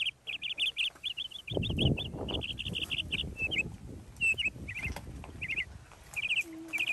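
Small birds chirping in quick runs of repeated high notes. A low rustling noise sets in about a second and a half in and fades after a few seconds.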